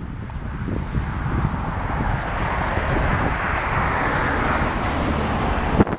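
Wind and road noise from riding a bicycle: a steady low rumble and rush of air over the microphone that swells in the middle, with a sharp click near the end.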